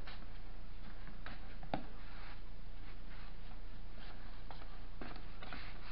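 Steady low room hum with a few faint, scattered soft taps and rustles: a dog in fabric boots shifting its feet on a tiled floor.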